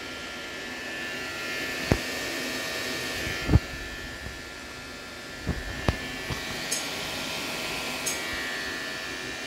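Alienware m15 R2 laptop's cooling fans running with a steady whir and a high whine, the very loud and strange fan noise the owner heard once and found alarming. A few dull knocks sound about two seconds in, at three and a half seconds, and twice near six seconds.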